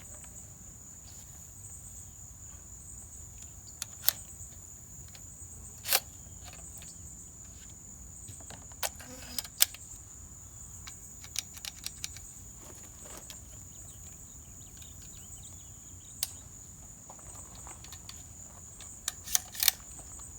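Crickets trilling steadily, with scattered sharp clicks and clacks from handling a rifle and its magazine; a quick cluster of clicks comes near the end.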